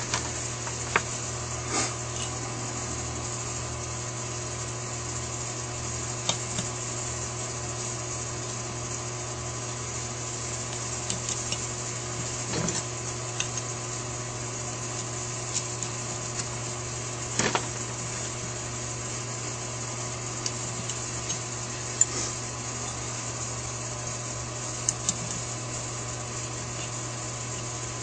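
Small metal clicks, taps and scrapes, scattered and irregular, from flat-head screws being fitted and driven into the secondary diaphragm housing of a Holley 4000 carburetor. They sit over a steady electrical hum.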